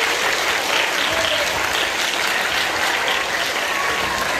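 Audience applauding, a steady clapping.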